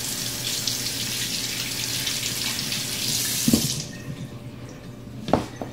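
Kitchen sink faucet running, water splashing over a sealed glass jar as its outside is rinsed off. The water shuts off just under four seconds in, with a light knock, and another knock comes near the end.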